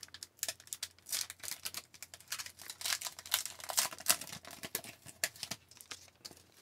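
Hobby packs of trading cards being handled and opened, the foil wrappers crinkling and the cards snapping against each other in a rapid, irregular run of crisp clicks and rustles. It dies away near the end.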